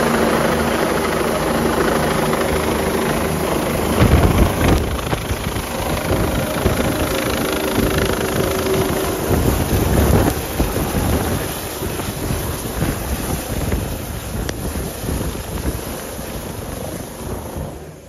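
Helicopter flying low overhead and coming in to land: a steady rotor and turbine din, with heavy gusts of rotor downwash buffeting the microphone about 4 and 10 seconds in. It grows fainter over the last seconds and drops away sharply at the very end.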